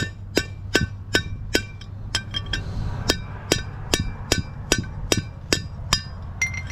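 Hammer tapping the old wheel bearing race out of the front rotor hub of a 1999 Chevy C3500HD, metal on metal. Sharp ringing strikes come steadily at about two and a half a second.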